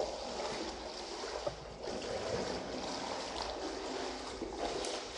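Footsteps and movement on a wet, debris-strewn tunnel floor: a steady, splashy shuffling.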